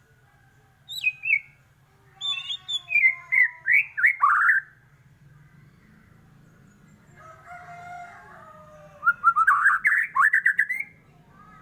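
White-rumped shama (murai batu) singing two loud phrases of varied whistles. Each phrase ends in a quick run of rising notes. The first starts about a second in, the second a few seconds later.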